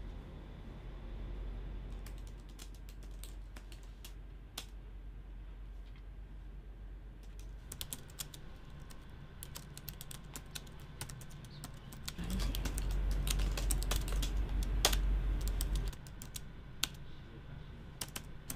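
Fingers typing on a laptop keyboard: scattered key clicks from about two seconds in, growing into quicker, busier typing from about halfway. A low hum underneath swells louder for a few seconds past the middle.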